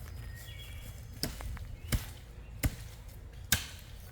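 Axe blows chopping into a small tree trunk: four sharp strikes, roughly one every three-quarters of a second, starting about a second in.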